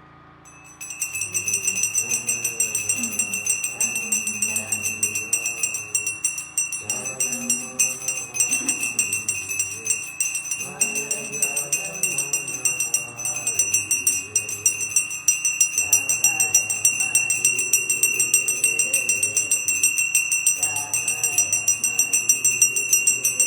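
Puja hand bell rung rapidly and without pause from about a second in, its high ringing the loudest sound, over a group singing the arti in phrases a few seconds long.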